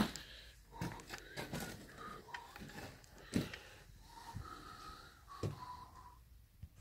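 Soft whistling of a few short notes that step up and down in pitch like a tune, with scattered knocks and scrapes of movement over rubble; the loudest knocks come near the start and about three and a half seconds in.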